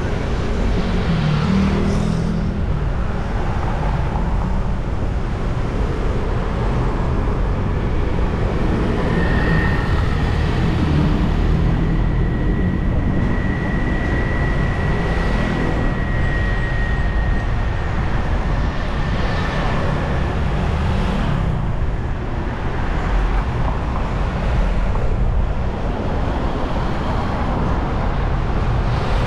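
City road traffic: cars passing in a steady rumble of engine and tyre noise. A thin, steady high tone is held for about ten seconds midway.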